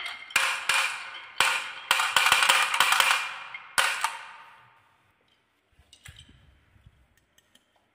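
Balls rolling and clattering down a wavy wooden marble-run track and dropping into a plastic toy dump truck's bed: a rapid run of clicks and knocks for about four seconds, then dying away. A few light clicks follow about six seconds in.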